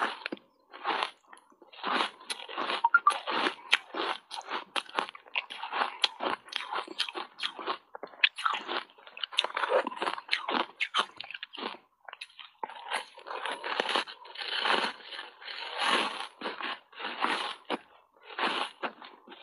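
Block ice coated in matcha powder being bitten and chewed: dense, sharp crunching and crackling of ice breaking between the teeth, with brief pauses between bites.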